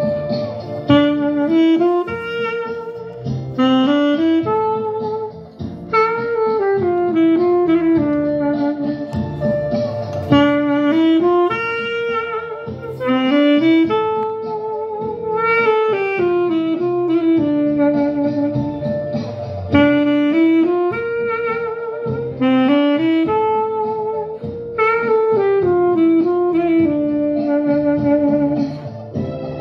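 Saxophone playing a jazz melody over a low accompaniment. A rising-and-falling phrase comes back about every six seconds.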